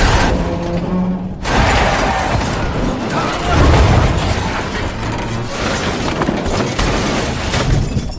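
Film sound effects of a truck ramming a car: a loud impact with glass shattering, then several seconds of dense crashing and rumbling noise that swells again about three and a half seconds in.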